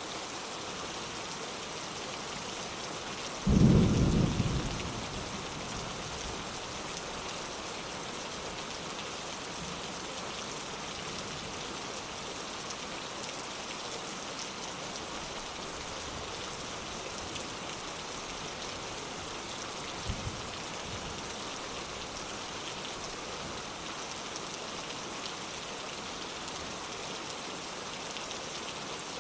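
Steady rain falling, with one sudden loud clap of thunder about three and a half seconds in that rolls away over a couple of seconds, and a much fainter low thunder thud about twenty seconds in.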